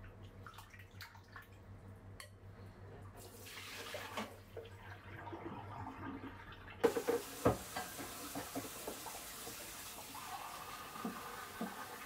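Dishes being rinsed at a kitchen sink: light clinks as a glass bowl is handled, then a little past halfway the faucet comes on and runs steadily, with a few sharp knocks of crockery as it starts. Near the end the stream runs into a mug.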